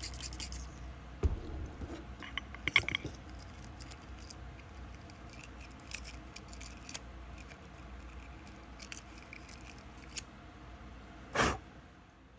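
Plastic scrub brush scrubbing a Briggs & Stratton carburetor part in isopropyl alcohol: scratchy brushing and small clicks and taps as the part is handled. A short, loud burst of noise comes near the end.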